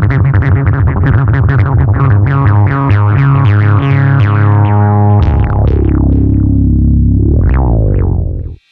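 Electronic music: fast repeating synthesizer notes over a steady bass, changing about five seconds in to slower ringing notes, then cutting off suddenly just before the end.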